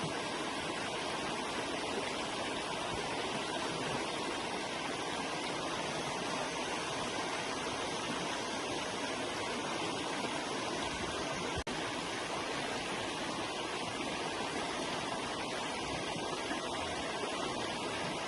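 River water flowing, a steady, even rushing with no change in level. There is one brief click with a momentary drop in level about two-thirds of the way through.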